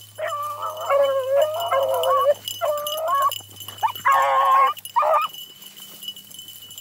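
Beagles baying on a rabbit's trail, a run of drawn-out, bending cries that sometimes overlap. They stop about five seconds in.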